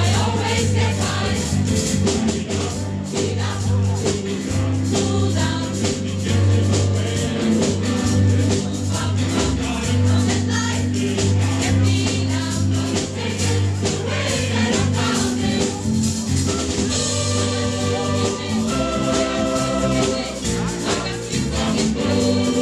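Choir singing with a band accompanying: a steady bass line and a fast shaker- or tambourine-like beat. Near the end the beat thins and long held notes carry on.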